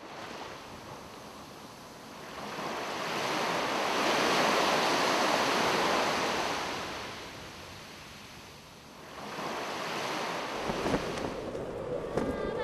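Ocean waves washing in: a broad rush of surf swells up over a couple of seconds, eases off, then builds again near the end.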